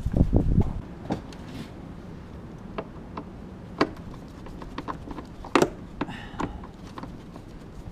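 A quick flurry of knocks, then scattered sharp clicks and taps, one louder about five and a half seconds in, and a brief rustle just after. This is the sound of tools and plastic engine-bay parts being handled while a Torx-bolted part is taken out.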